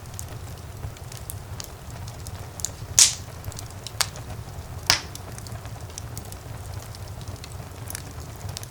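Wood fire burning in a fireplace: a steady low rumble of the flames with scattered small crackles, and three sharp pops about a second apart near the middle, the first the loudest.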